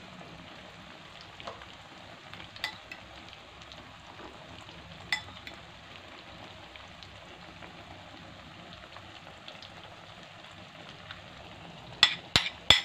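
Tilapia fillets in beaten egg frying in oil over low heat: a steady sizzle with an occasional pop. Near the end, a few sharp clinks of a spoon against a bowl as the last of the egg is scraped into the pan.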